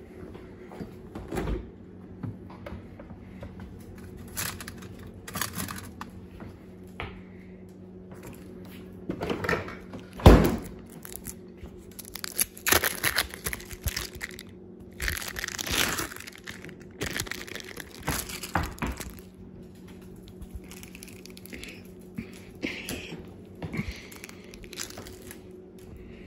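Plastic food wrapper being crinkled and rustled in irregular short bursts, with handling knocks and one loud thump about ten seconds in, over a steady low hum.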